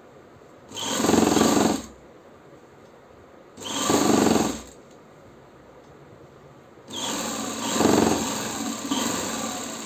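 Sewing machine stitching a seam in three runs: two bursts of about a second each, then a longer run of about three seconds near the end that fades off.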